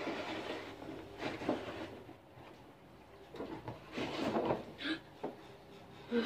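Cardboard box being handled and opened by hand: irregular scrapes, rubbing and light knocks of the cardboard, with a quieter moment about two seconds in.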